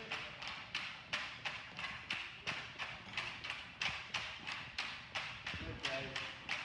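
Tinikling poles knocked on a hard floor and clapped together in a steady rhythm, about three sharp wooden strikes a second.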